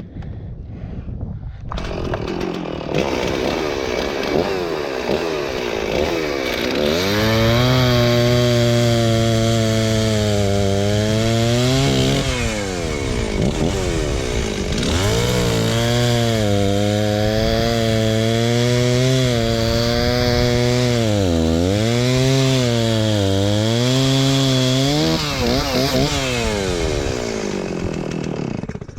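Stihl two-stroke chainsaw cutting through a maple trunk. It comes in about two seconds in and runs at high speed, with its pitch sagging several times as the chain bogs under load in the cut, then it stops near the end.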